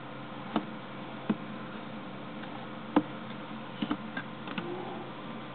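Scattered light clicks and taps at irregular moments, the sharpest about three seconds in and a quick cluster near four seconds, over a steady low hum.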